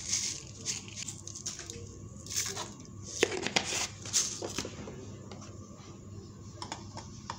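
Light kitchen handling sounds as spices are added to a steel grinder jar: scattered rustles, taps and sprinkling, busiest in the middle.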